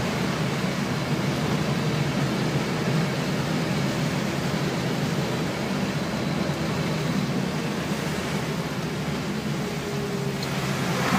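Steady drone inside a moving vehicle on a wet road: engine hum with tyre and road noise, even in level.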